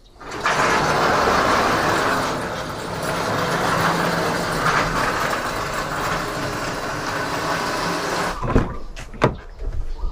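Bosch high-pressure washer spraying, a steady hiss over its motor's low hum, starting about half a second in and stopping after about eight seconds. Two sharp knocks follow.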